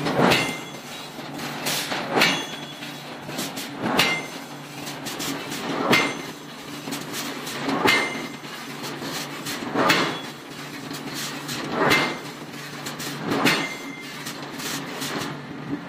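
Heavy forging blows driving a punch into a red-hot iron column, a sharp metallic strike with a short ring about every two seconds, eight times, over a steady mechanical hum.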